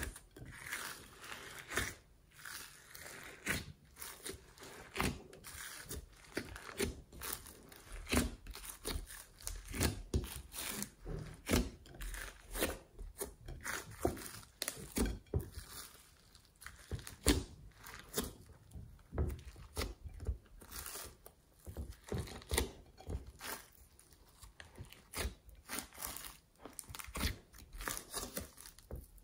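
Glossy slime with glitter and bits mixed in being squished, folded and stretched by hand in a glass dish, giving a continuous run of irregular sticky pops, clicks and crackles.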